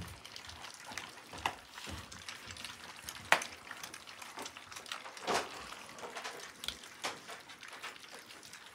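Litter of three-week-old puppies lapping and smacking at wet mush: an irregular patter of small wet clicks and slurps, with a sharper click about three seconds in.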